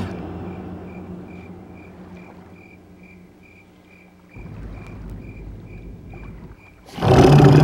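Crickets chirping steadily, about two and a half chirps a second, over a low hum that fades away. A low rumble comes in about halfway, and a much louder, low, pitched sound starts near the end.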